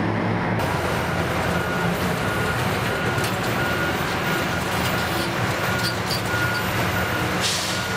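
Diesel engines of Cat 657G wheel tractor-scrapers running steadily under load, with a faint high beep repeating at intervals.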